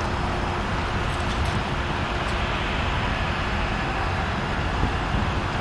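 Diesel locomotives of a Norfolk Southern freight train moving slowly, a steady low noise mixed with road traffic.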